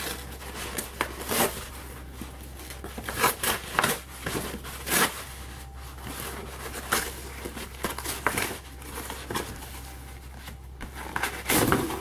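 A paper USPS Priority Mail flat rate envelope being torn open by hand: irregular ripping and crinkling of the paper in short bursts, about one a second.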